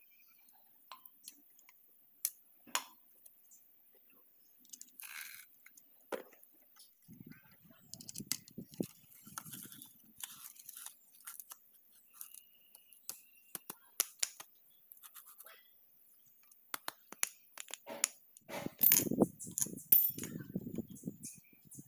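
Scattered small metal clicks, clinks and handling noises as pistons and a connecting rod are handled and fitted into a Perkins diesel engine block, with a louder flurry of knocks and rustling near the end.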